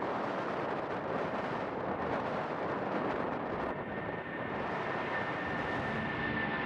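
Boeing 747's jet engines running with a steady rushing roar. A high whine comes in about two seconds in, grows stronger and drops slightly in pitch toward the end.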